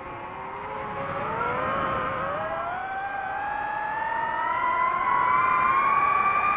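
DJI FPV drone's motors and propellers whining, the several tones rising steadily in pitch and growing louder as the motors speed up.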